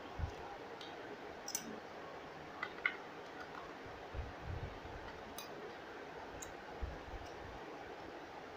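Faint, scattered clicks and a few soft knocks as AAA batteries are fitted by hand into the plastic battery compartment of a Zilant digital bathroom scale.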